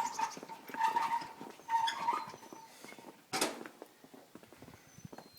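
A dog barking: three short, high-pitched barks in the first two seconds or so, then a single sharp noise about three and a half seconds in.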